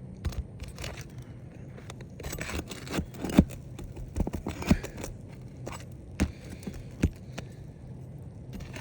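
Scraping and irregular sharp clicks from a pry tool working under brittle asphalt shingles to get at the roofing nails, with the loudest knocks about three and a half and nearly five seconds in.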